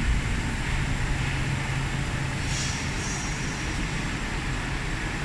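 Steady din of running machine tools in a metal-machining workshop. A low hum drops away about three seconds in, and a brief high hiss sounds near the middle.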